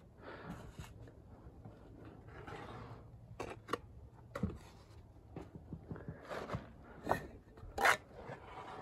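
A steel brick trowel scraping mortar while a brick is set in place: a series of short scrapes and sharp clicks, the loudest near the end.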